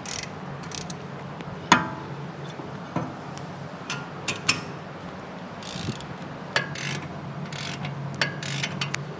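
Hand tools clicking and clinking against metal while working on a wheel hub: scattered sharp knocks and ratchet-like clicks, one ringing clink louder than the rest, a few short scrapes, and a steady low hum underneath.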